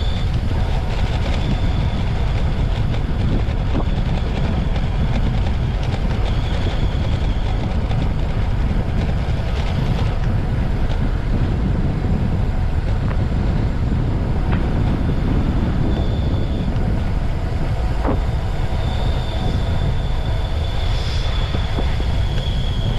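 Steady wind rumble buffeting an action camera's microphone while riding at around 40 km/h. A faint high whistle comes and goes over it.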